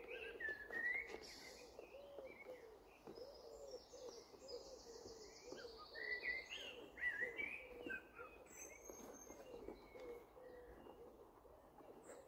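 Faint birdsong: small birds chirping in short high phrases while a pigeon coos over and over in the background.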